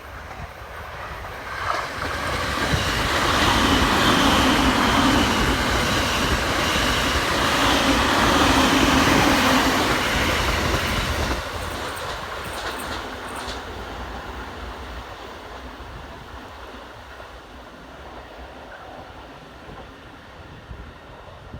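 JR 209 series electric commuter train passing over a level crossing, its wheels and running gear building to a loud rush and then slowly fading away as it goes off.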